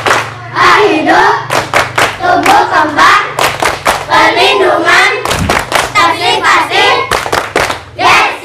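A group of children singing together loudly, with hand claps scattered through the song.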